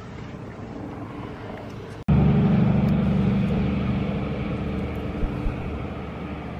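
A low, steady engine drone. It drops out suddenly about two seconds in, comes back much louder and then slowly fades.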